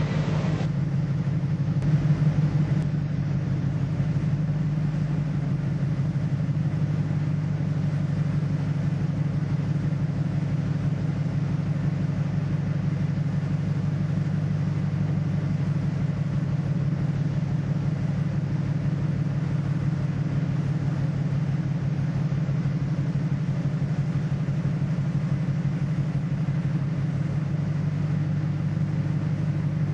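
Ship's engine running with a steady low drone and a fast, even pulse.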